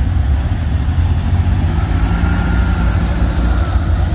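Volkswagen Beetle's air-cooled flat-four engine running steadily as the car drives off at low speed.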